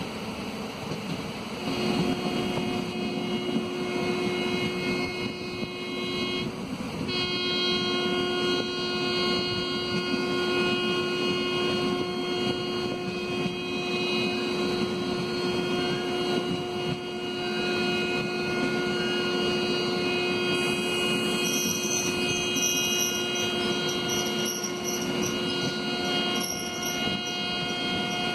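Passenger train running on the line, heard from an open coach doorway: a steady rumble of wheels on rail with a humming tone and its overtones held at one pitch. The tone sets in about two seconds in and drops out briefly around seven seconds.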